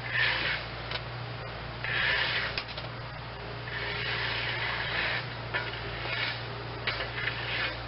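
Bursts of scraping and rubbing from metal parts being worked by hand while an idler pulley is fitted to a mower deck, with a few small clicks between them. A steady low hum runs underneath.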